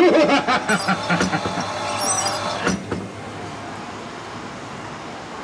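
A recorded pirate voice speaking Danish for about three seconds, then a steady background hiss.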